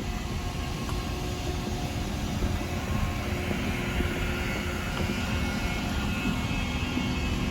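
Steady engine drone over a low rumble, with a few faint steady tones running through it.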